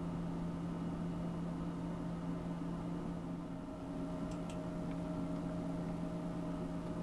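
A steady low hum with fainter higher tones over a light hiss, and a couple of faint clicks a little past the middle.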